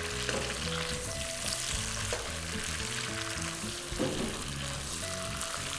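Chicken pieces sizzling steadily as they fry in hot oil in a pot, turned with metal tongs, with two brief knocks about two and four seconds in. Background music plays under it.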